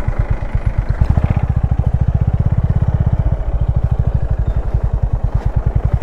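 Motorcycle engine running at low revs, a fast, even pulsing of its firing strokes, a little louder from about a second in.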